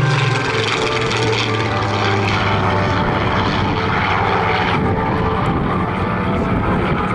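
Spitfire PR XIX's Rolls-Royce Griffon V12 engine running as the plane passes overhead. The pitch drops as it goes by, then a steady drone follows as it climbs away, and the upper hiss thins out about five seconds in.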